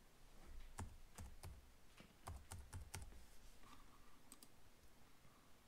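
Computer keyboard typing, faint: digits of a phone number keyed in as about ten short key clicks, in quick runs with pauses between.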